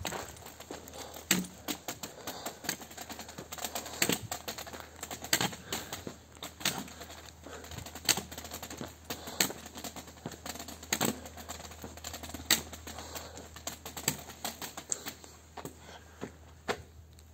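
Walking on a concrete and stone-paved path: sharp clicks every second and a half or so, with lighter, irregular clicking between.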